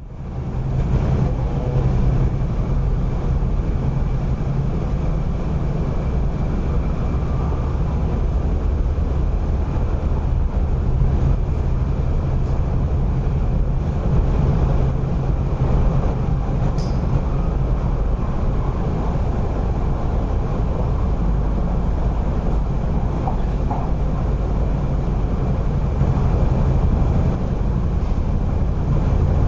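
Cabin noise of an MTR East Rail Line R-train running at about 110 km/h: a steady low rumble of wheels on track with a faint steady high tone above it, and a single light click partway through.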